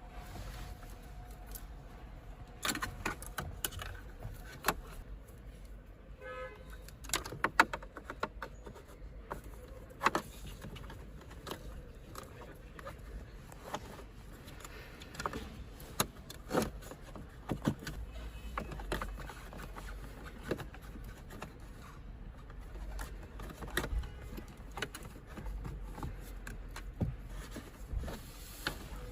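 Scattered clicks, knocks and rattles of wiring-harness cables and plastic connectors being handled and routed behind a car dashboard, with a brief squeak about six seconds in.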